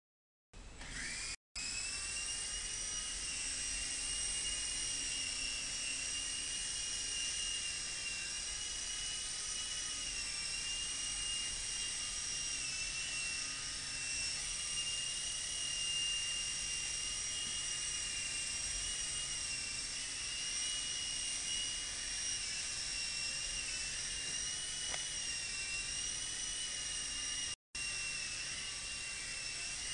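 Modelzone Thunder infrared indoor toy helicopter, its small electric motor and rotors spinning up about a second in and then flying: a steady high-pitched whine that wavers slightly in pitch as the throttle changes. The sound cuts out for an instant twice.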